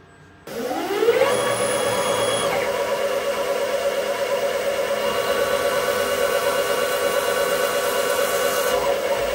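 DIY CNC lathe spindle spinning up with a rising whine about half a second in, then running at speed with a steady whine while a twist drill peck-drills an aluminium workpiece.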